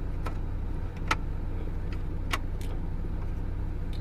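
Mk1 Audi TT engine idling steadily, with a few short, sharp clicks of plastic being handled at the dashboard.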